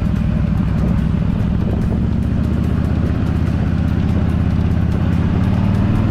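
Yamaha V Star 1300 Deluxe's V-twin engine running steadily while the motorcycle is ridden at an even speed, a constant low drone.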